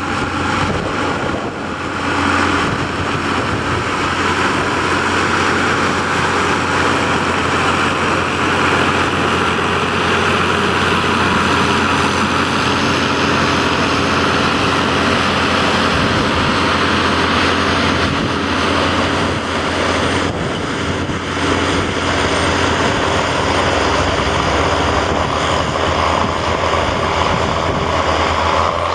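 County 1454 tractor's six-cylinder diesel engine running steadily under heavy load while pulling front and rear ploughs through the soil.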